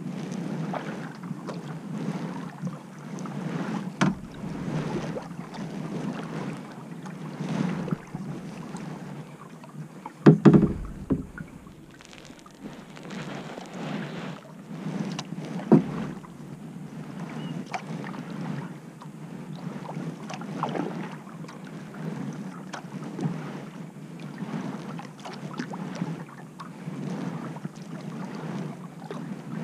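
Kayak paddling: a double-bladed paddle dipping and pulling through calm water in a steady rhythm, one stroke every second or two, with water washing along the hull. A loud thump about ten seconds in.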